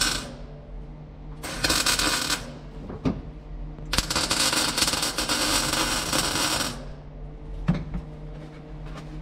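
MIG (wire-feed) welder crackling as spot welds are laid on the Beetle's sheet steel, in bursts: a short one about a second and a half in, then a longer one of about three seconds starting about four seconds in. The tail of an earlier weld stops right at the start, and there is a single click near the end.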